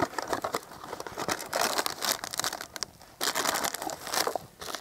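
Packaging crinkling and tearing as it is handled and opened by hand, in bursts, with two longer spells about a second and a half in and just past three seconds in.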